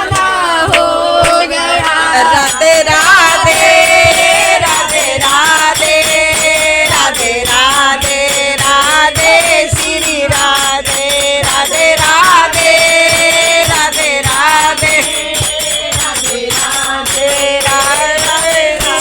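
Women's voices singing a Hindu devotional song (bhajan) together, with a fast, regular percussive beat throughout.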